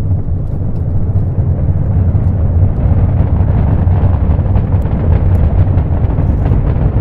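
Space Shuttle Atlantis's solid rocket boosters and main engines during ascent just after the roll call: a loud, steady deep rumble with faint crackle.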